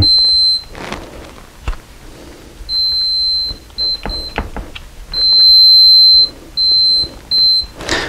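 Digital multimeter's continuity beeper sounding as its test leads are worked together, a single high tone that cuts in and out in uneven beeps: an intermittent connection, which the owner says he has to fix again.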